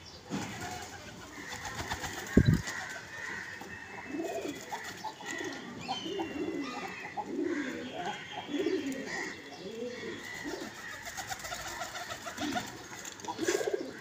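Domestic pigeons cooing: a run of low, arching coos one after another through the middle. A single dull thump about two seconds in is the loudest sound.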